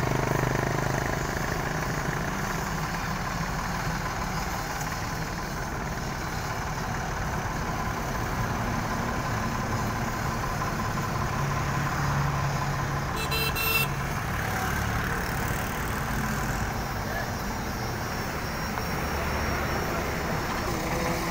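Ford farm tractor's diesel engine running steadily under heavy load as it pulls an overloaded sugarcane trolley, its front wheels lifting off the ground. A brief high-pitched tone sounds about two-thirds of the way through.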